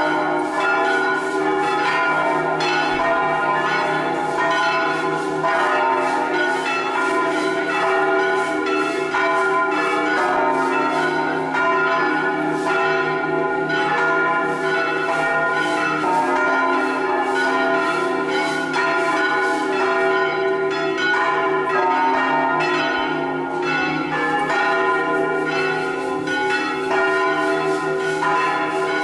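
The electrically swung bronze bells of San Rufino Cathedral's six-bell ring in E-flat, all except the fourth bell, ringing together in a full-swing Italian peal (distesa a slancio), their strokes overlapping steadily.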